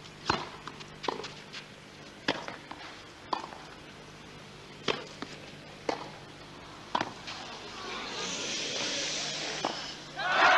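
Tennis ball struck back and forth with racquets in a rally on a clay court: sharp pops roughly a second apart. Crowd noise swells from about eight seconds in and breaks into loud cheering right at the end.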